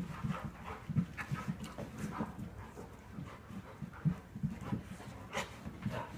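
A dog breathing heavily in short, irregular puffs, several a second.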